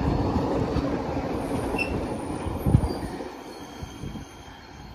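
Loaded wagons of a narrow-gauge sugarcane train rolling past: a steady rumble and clatter of wheels on rail, with a single sharp knock nearly three seconds in, fading as the train moves away.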